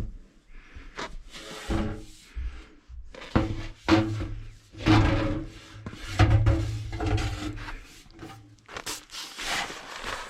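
Irregular rubbing and scraping, a string of uneven strokes about half a second to a second long, as things are worked against each other by hand.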